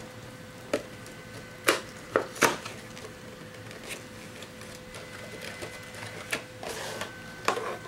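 Cardboard trading-card box being opened and its foil packs handled: a few scattered short rustles and taps over a faint steady electronic hum.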